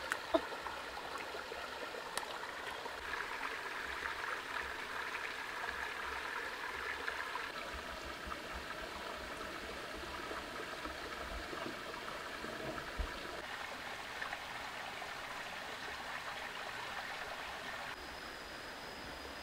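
Shallow rocky stream running steadily, an even rush of water with a couple of faint knocks. Near the end the water sound drops a little and a thin, high, steady tone comes in.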